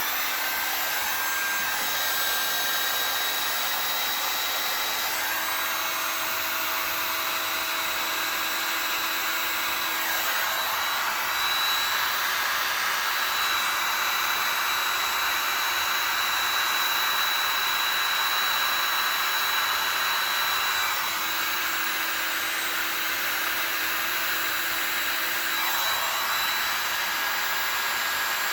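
Electric heat gun blowing steadily, shrinking adhesive-lined heat-shrink tubing over a soldered wire splice; a faint steady whine rides on the rush of its airflow.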